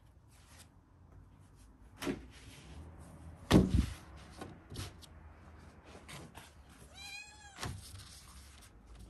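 Thin dry lavash sheets rustling and crinkling as they are laid out and smoothed on a wooden board, with light taps and one louder thump on the wood about three and a half seconds in. Near the end comes a single short high call that rises and falls.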